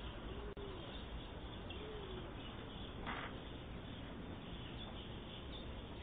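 A dove cooing twice in the first two seconds, each coo a short low note that rises and falls, over the steady hiss of a doorbell camera's microphone. About three seconds in comes a brief scratchy burst.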